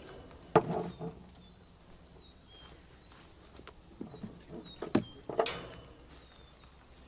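Irregular footsteps and handling noises, a few sharper knocks among them, with small birds chirping faintly in the background.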